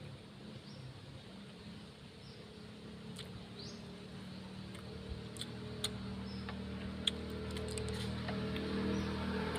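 Scattered light clicks and taps of eating by hand, shells and utensils, over a low steady hum that grows louder toward the end, with a few faint short chirps.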